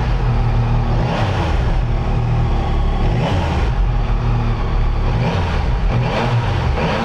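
2024 Yamaha MT-09 SP's 890 cc inline-three running on its stock exhaust, idling with a steady low rumble and swelling briefly about five times as the throttle is blipped.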